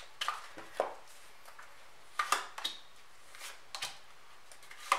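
Tarot cards being dealt from a deck and laid onto a wooden tabletop: a string of short, sharp card snaps and taps, about seven in all, the loudest about two seconds in and at the very end.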